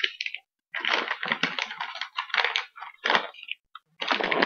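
Crumpled magazine pages used as packing rustling and crinkling as they are pulled out of a shipping box, in irregular bursts for about two and a half seconds.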